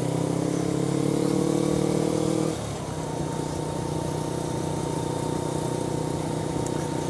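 Suzuki GS500F's parallel-twin engine running while riding at town speed, its note dropping and quietening about two and a half seconds in as the throttle closes, then holding steady. Wind rush on the microphone runs underneath.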